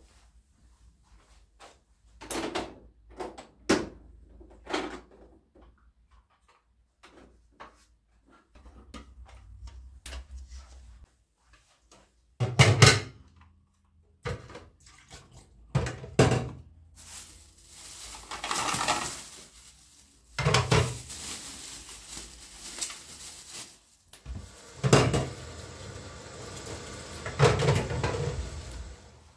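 Household handling sounds: a string of separate knocks and clatters of objects being moved and set down, with longer stretches of rustling in the second half.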